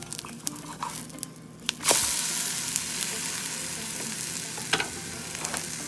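Gram-flour and egg pancake sizzling in a hot non-stick frying pan as it is flipped: after a few light clicks of the spatula, the sizzling jumps suddenly louder about two seconds in as the herb-topped side lands on the pan, then holds steady.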